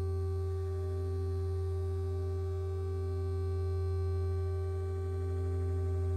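A steady low electronic hum, with a fainter held tone above it; it does not change.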